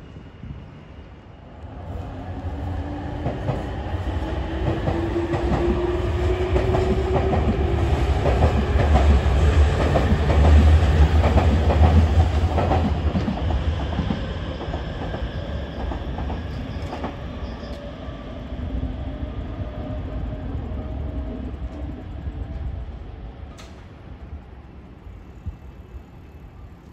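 Nankai electric train, a dark navy Rapi:t airport express, pulling away along the elevated line. Its traction-motor whine rises in pitch as it picks up speed, with wheels clacking over the rail joints. It grows loud through the middle, then fades into the distance.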